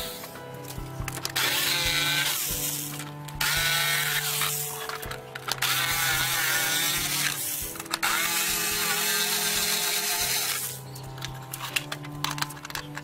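Electric jigsaw cutting through a wooden board in several runs of a couple of seconds each, its motor whine wavering in pitch, over background music. It stops near the end, leaving a few light clicks.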